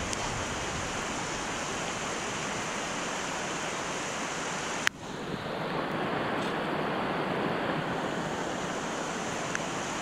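Steady rushing of the Makino River, a rocky forest river in rain, as an even hiss. A single sharp click comes about five seconds in, after which the hiss is less bright.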